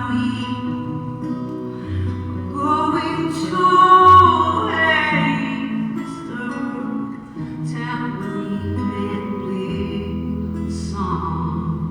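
Live band playing an instrumental stretch of a folk-rock song: guitar over held bass notes that change every couple of seconds, recorded on a phone from near the stage.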